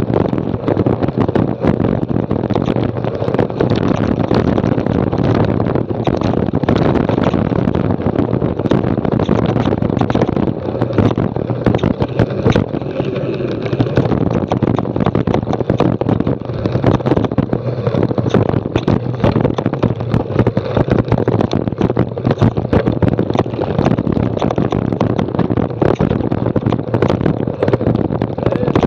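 Mountain bike riding fast over rough, stony gravel track, heard from an action camera mounted on the bike: tyres crunching over stones and the bike and camera rattling with constant small knocks, with wind rushing over the microphone.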